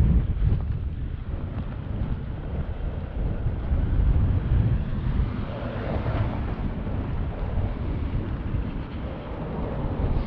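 Blizzard wind buffeting the microphone: a low, gusty rumble that rises and falls.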